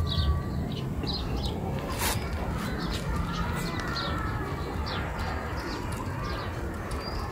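Small birds chirping repeatedly in short high calls over a steady background, with one sharp click about two seconds in.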